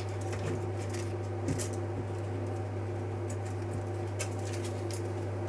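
A steady low hum with a few faint light clicks and taps of small parts being handled, such as an LED strip being set on a printed helmet.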